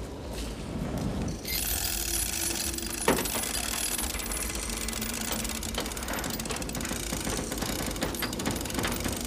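Fast, dense mechanical clatter, like a power tool or machine running, starting about a second and a half in, with one sharp knock about three seconds in.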